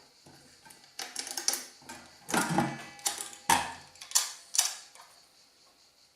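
Clicks and clattering knocks from the bevel adjustment of a Parkside PHKSA 20-LI A2 cordless circular saw as its base plate is tilted between the 45° and 90° settings. About eight sharp knocks come between one and five seconds in.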